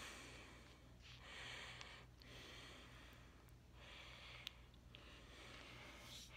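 Faint, slow breathing close to the microphone, in even swells of a second or two each, with one small click about four and a half seconds in.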